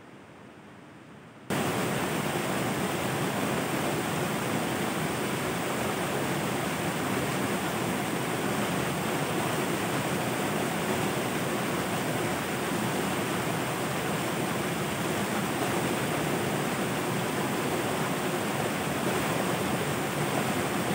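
Steady rushing of fast-flowing water, cutting in suddenly about a second and a half in.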